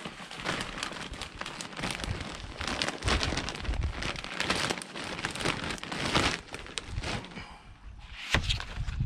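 Potting compost being scooped and filled into a plastic plant pot: dense crackling and rustling of crumbly soil. It thins out about three-quarters of the way through, with a couple of sharp knocks near the end.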